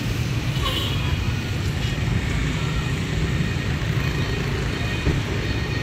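Steady city traffic noise: a low rumble of cars and buses with an even hiss above it.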